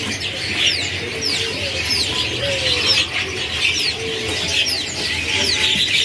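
Many caged songbirds chirping together, with short high chirps sliding downward about twice a second over a constant busy chatter, and a few lower sliding notes underneath.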